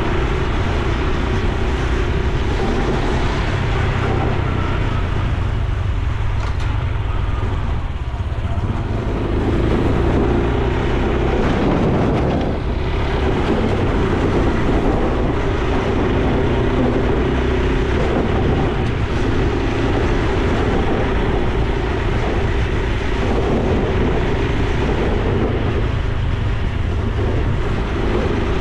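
Honda Super Cub C125's single-cylinder 125 cc engine and exhaust running steadily while the bike is ridden. The engine note eases off about eight seconds in and picks up again a few seconds later.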